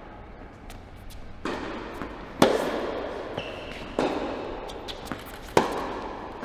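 A tennis rally in an echoing indoor tennis hall: four sharp hits of racket and ball on court, about a second and a half apart, each ringing on in the hall. The loudest comes about two and a half seconds in.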